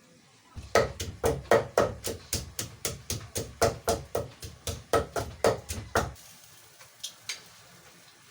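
A run of about twenty sharp, evenly spaced knocks, roughly four a second, that starts about half a second in and stops after about five and a half seconds.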